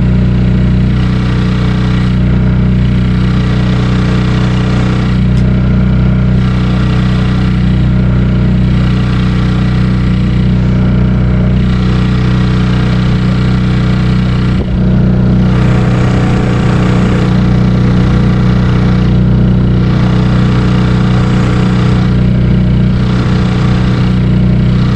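Yamaha 3 hp two-stroke outboard motor running steadily, driving an inflatable boat along under way; its sound dips briefly about fifteen seconds in.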